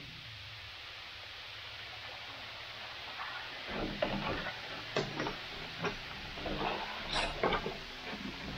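A large open pan of boiling sugar syrup hissing steadily. About three and a half seconds in, a long-handled flat scraper starts working the surface, adding irregular splashes and knocks against the pan.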